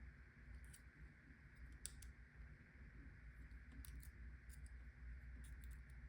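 Faint, scattered clicks of a hook pick and tension tool working inside a pin tumbler lock held in the hand, over a steady faint hum.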